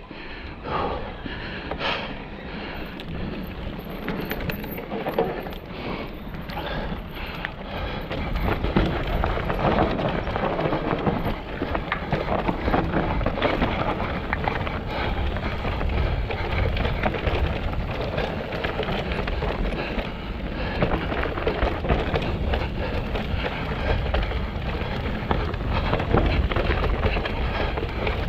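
Mountain bike riding down a rough, rocky trail: a steady rumble of tyres over rock, with constant rattling and small knocks from the bike, getting louder about eight seconds in.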